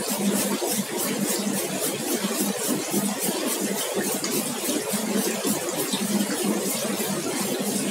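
Steady hiss of a compressed-air spray gun and paint booth ventilation, with a low steady hum underneath.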